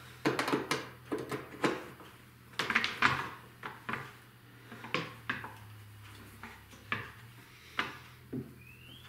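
Scattered knocks and clicks of a router and wooden jig being handled and set up on a workbench, the router not yet running, over a faint low steady hum.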